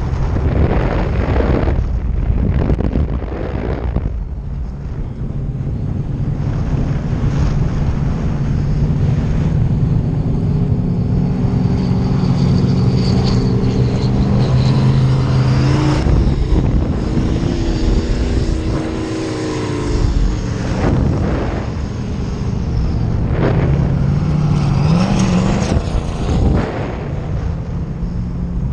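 Wind rushing over the microphone of a harness-mounted camera in paraglider flight, mixed with a steady low droning tone that shifts pitch in places and rises briefly near the end.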